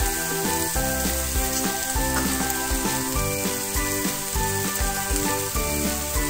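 Mushrooms sizzling as they fry in a hot grill pan over a gas flame, stirred with tongs at the start. Background music with a steady beat plays over the sizzle.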